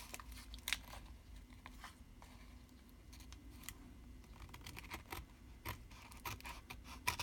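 Scissors snipping excess paper off the edge of a collage journal page: faint, irregular small clicks and snips.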